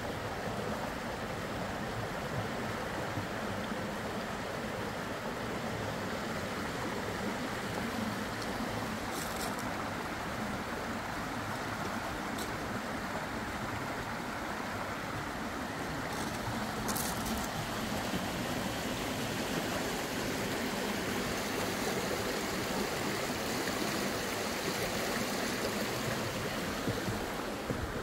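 Small rocky woodland stream running steadily, a little louder from about halfway through.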